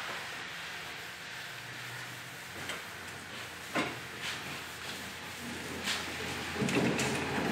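Steady hand scrubbing of a red Scotch-Brite-type scuff pad over the painted steel fender of a Nissan Hardbody pickup, scuffing down flaking clear coat. A few light knocks come through about four and six seconds in.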